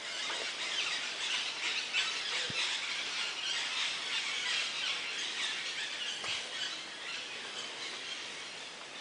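Dense chorus of forest birds and insects: a steady mass of high, scratchy chirping and calling.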